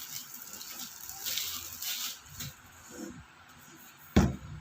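Rustling and crinkling of packaging as an iPad is handled out of its box, then a single sharp thump about four seconds in.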